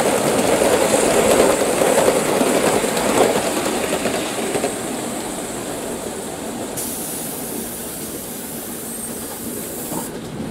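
Model train of a steam locomotive and a long rake of coaches running on garden railway track, its wheels rumbling and clicking over the rails. It is loudest as it passes close, then falls away about four and a half seconds in as it draws off round the curve.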